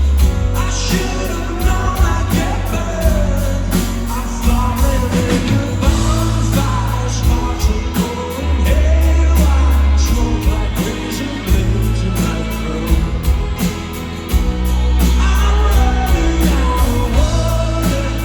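Live rock band playing loudly, with a singer's lead vocal over heavy bass and drums.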